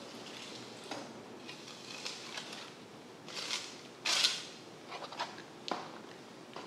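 Knife trimming a bluefin tuna loin on a wooden cutting board: scattered small knocks and wet scraping, with two short swishes of the blade a little past three and four seconds in, the second the loudest.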